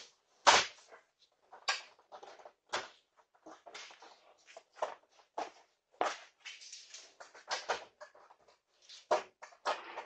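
Irregular knocks, clunks and clatter of intruders rummaging behind a shop counter, with two sharp loud knocks in the first half second and quieter ones scattered after.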